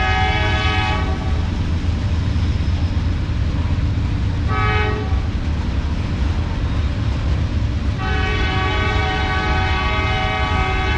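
Freight train of covered hopper cars rolling past with a steady low rumble. The locomotive's horn sounds over it in a long blast, a short blast, then a long blast, the close of the standard grade-crossing signal.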